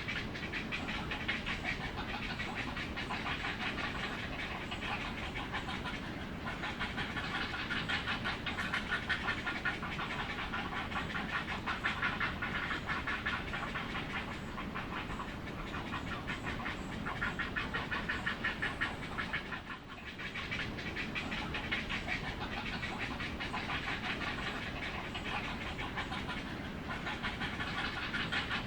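Heron calling: a rapid, continuous run of harsh pulsed chattering notes that goes on with hardly a break, dipping briefly once.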